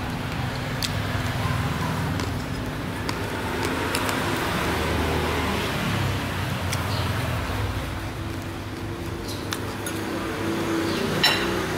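Street traffic noise: motor vehicles running and passing, with a few scattered sharp clicks and one louder click near the end.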